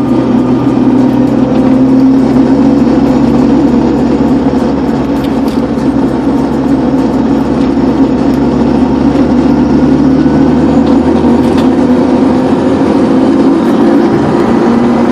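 BMW E36 driving steadily in third gear with a continuous engine and drivetrain drone. This is the in-gear grinding noise the owner is demonstrating, which he says is absent in fifth gear.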